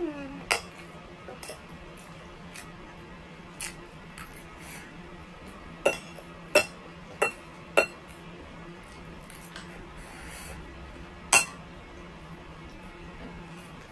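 Spoon and fork clinking and scraping against a plate during a meal: scattered sharp clinks, with a quick run of four between about six and eight seconds in and one more a few seconds later.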